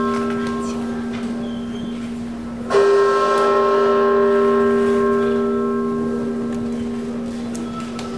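Liberty Bell ringing: struck strokes about five and a half seconds apart. Each stroke starts suddenly and hums on in a few steady tones that fade slowly. One stroke comes a little under three seconds in, while the previous stroke is still dying away, and the next comes right at the end.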